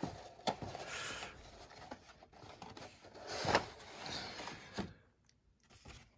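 Cardboard model-kit box being handled and its lid slid off the base: cardboard rubbing and scraping with a few light knocks, loudest about three and a half seconds in.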